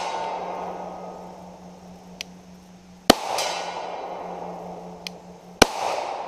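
Two pistol shots from a Glock 30 .45 ACP, a little over three seconds in and again two and a half seconds later. Each shot is followed by a long, fading echo. A faint sharp tick comes shortly before the second shot.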